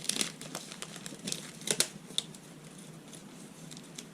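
Plastic snack wrapper crinkling as it is handled and opened, with several sharp crackles in the first two seconds and then quieter rustling.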